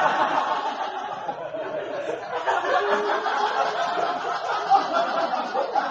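Comedy club audience laughing at a punchline, one long continuous laugh from many people.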